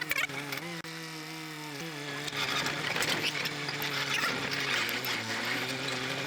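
Kubota KH-90 mini excavator's diesel engine running while the hydraulics are worked. The engine note rises briefly about a second in and falls back. From about two seconds in, a louder, noisier working sound is added over the engine.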